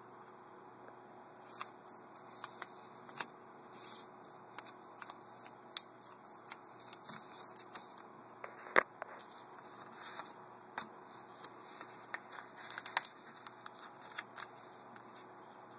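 A sheet of paper being folded and creased by hand: irregular rustling and crinkling with sharp crackles and snaps as folds are pressed down, the loudest snaps about nine and thirteen seconds in.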